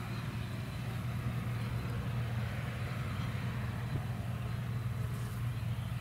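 Deutz-Fahr 5690 combine harvester and a John Deere tractor running together while harvesting barley: a steady, unbroken low engine drone.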